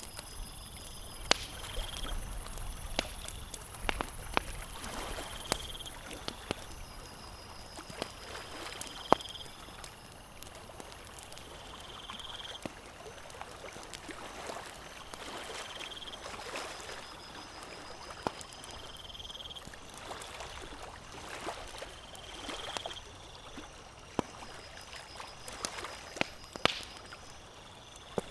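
Campfire crackling with irregular sharp pops, over gently lapping lake water. A high call about a second long repeats every three to four seconds.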